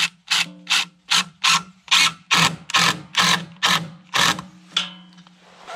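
Pump faucet on a portable camp sink being worked in quick, even strokes, about three a second, with water spurting on each stroke over a steady low hum. The strokes stop about five seconds in.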